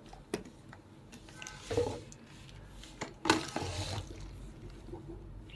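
Packaging being handled and opened: a sharp click, then two bursts of rustling and crinkling, about a second and a half in and again about three seconds in.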